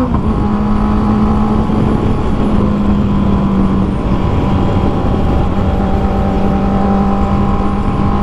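Honda CB650R's 649cc inline-four, fitted with an Akrapovic full exhaust system, heard while riding. Its climbing note drops sharply at an upshift right at the start, then it holds a steady engine speed over wind rush.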